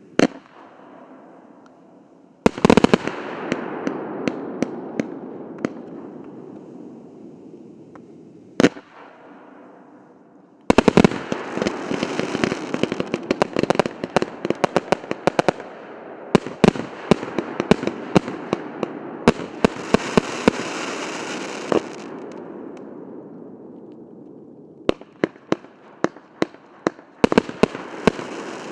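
A 1.2- and 2-inch consumer fireworks battery (cake) firing. A couple of single sharp reports come in the first nine seconds, then a long, dense run of rapid shots and bursts from about eleven to twenty-two seconds, and another quick string of shots near the end. A rushing noise swells with each volley and fades between them.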